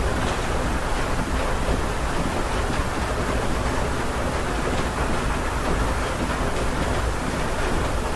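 Steady heavy rain heard from inside a house, a constant muffled rushing with a low rumble and faint scattered drop ticks.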